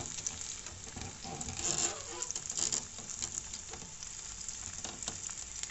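Sliced onion sizzling gently in oil in a frying pan, a steady crackling sizzle: the onion starting to fry for a soffritto.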